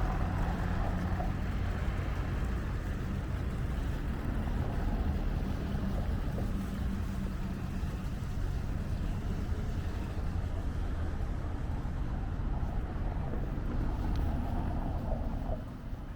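A steady low engine rumble with a faint low hum through it, dropping away near the end.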